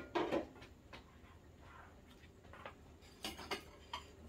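Light knocks and clinks of dishes and utensils being handled, irregular and scattered, the sharpest right at the start, over a low steady hum.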